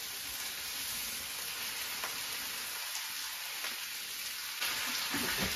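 Curry-marinated veal strips sizzling as they are tipped into smoking-hot oil in a stainless-steel frying pan; the sizzle is steady and grows louder near the end as more meat goes in.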